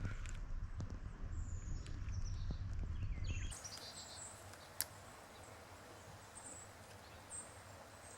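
Outdoor riverside ambience: a heavy low rumble of wind on the microphone for the first few seconds, then a sudden switch to a quieter, steady hiss with a few faint bird chirps and one sharp click.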